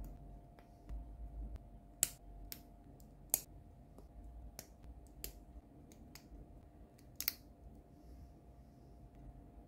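Snap-fit plastic parts of a Gunpla model kit (HG 1/144 Shin Burning Gundam torso) clicking into place as they are pressed together by hand. About a dozen sharp, irregular clicks, the loudest about two and three and a half seconds in.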